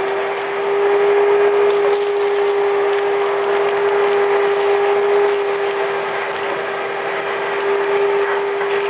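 Wet/dry shop vac running steadily with a constant whine, sucking water and lime sediment out of a water heater tank through a homemade wand.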